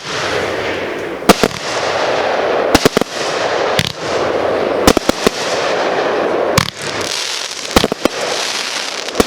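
Aerial fireworks going off: about a dozen sharp bangs at uneven intervals, some in quick doubles and triples, over a steady rushing hiss.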